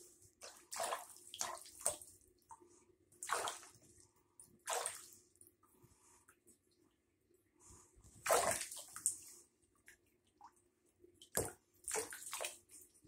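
Shallow water in a bathtub being splashed and sloshed by hand, in short bursts of splashing with pauses between, the loudest a little past the middle.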